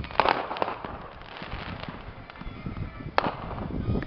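Fireworks going off: a sharp bang just after the start, another about half a second in and a third about three seconds in, with smaller crackling pops between.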